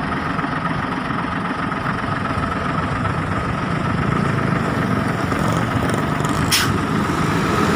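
Hino FG 235 Ti crane truck's diesel engine idling steadily, with a short hiss about six and a half seconds in.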